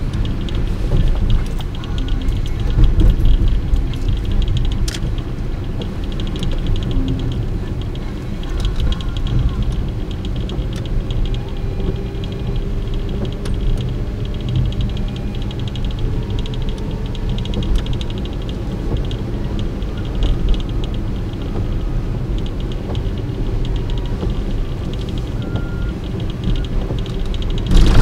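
Car driving on a rain-wet road, heard from inside the cabin: a steady low rumble of engine and tyre noise that swells and dips, with a faint fast ticking over it.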